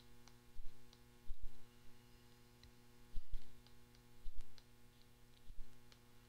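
Stylus tapping and clicking on a tablet's glass screen while handwriting numbers, about five soft taps spread through, over a steady low electrical hum.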